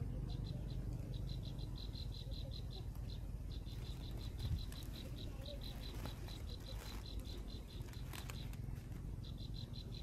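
An insect chirping in short, evenly spaced high pulses, about six a second, over a steady low rumble.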